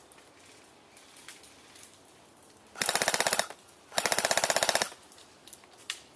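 Airsoft rifle firing two short full-auto bursts, rapid evenly spaced shots about 16 a second, the second burst a little longer, about a second after the first.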